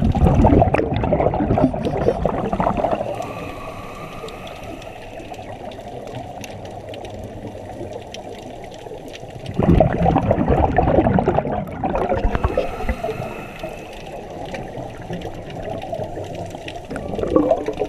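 Scuba regulator breathing underwater: two loud rushes of exhaled bubbles, about ten seconds apart, each followed by a fainter hiss, over a steady underwater hiss.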